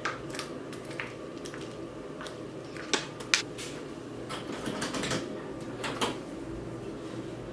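Scattered small clicks and knocks of objects being handled, the two loudest a little after three seconds in, over a steady low hum of room noise.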